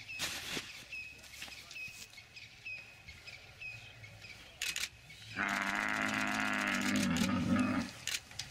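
Cape buffalo bellowing in distress while lions hold it down: one long, loud call of about two and a half seconds, starting a little past halfway through. Before it there are faint repeated high chirps and a few short knocks.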